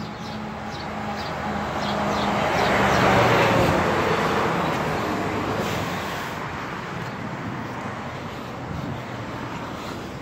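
A road vehicle passing on the street, its engine and tyre noise swelling to a peak about three seconds in and then fading away.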